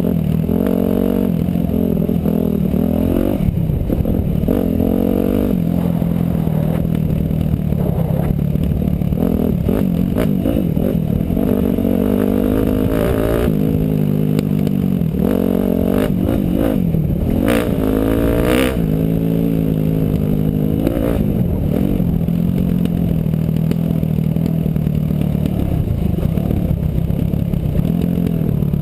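Motorcycle engine being ridden hard, its pitch rising and falling over and over with the throttle, then holding steadier near the end, with clattering from the bike throughout.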